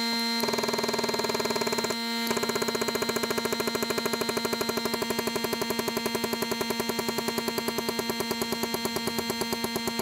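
Hydraulic crimping machine running as its collet dies close on a battery-cable lug. It makes a steady mechanical drone with a fast, even pulsing, with a brief break about two seconds in.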